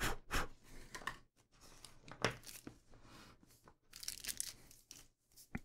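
Faint, irregular rustling and tearing of packaging handled by hand, in a few short scattered bursts as small batteries are unpacked.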